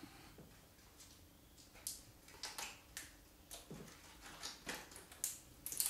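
Small plastic snack packets being torn open and crinkled by hand, in short irregular rustles.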